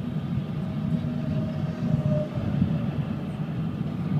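Steady road and engine rumble inside a car's cabin at motorway speed.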